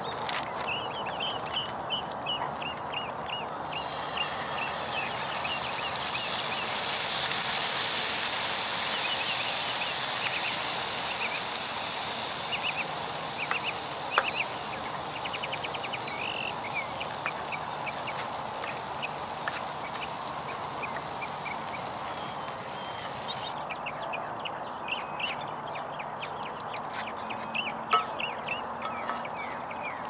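Food sizzling in a cast-iron skillet, swelling a few seconds in and cutting off sharply about three-quarters of the way through. Short high chirps run throughout.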